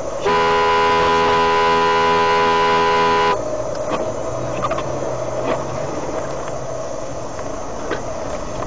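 A vehicle horn sounding one long blast of about three seconds, several steady tones at once, starting and cutting off sharply, over a continuous background hum.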